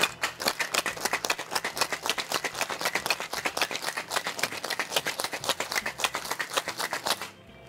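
Ice cubes rattling inside a metal cocktail shaker, shaken hard in a fast, even rhythm; the shaking stops shortly before the end.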